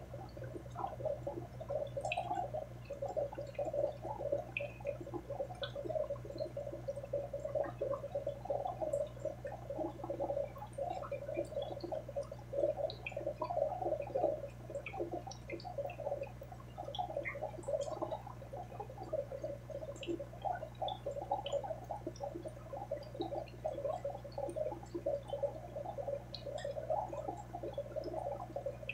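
Aquarium water bubbling and gurgling continuously, with small droplet ticks, over a low steady hum.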